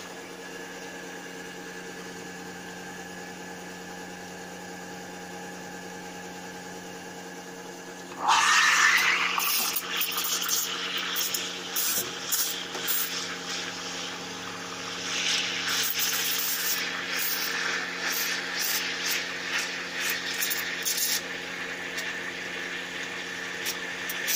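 Espresso machine humming steadily with a cup under the group head; about eight seconds in the steam wand opens with a brief rising whistle and a loud hiss, steaming and frothing milk in a stainless pitcher, the hiss wavering in loudness as the milk is stretched.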